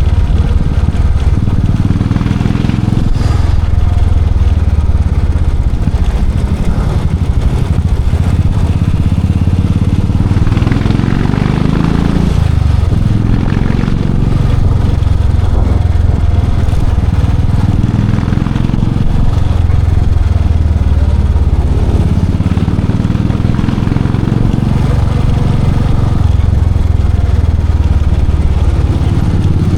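Royal Enfield Classic 500's single-cylinder engine and exhaust running under way, the note swelling and easing every few seconds with the throttle.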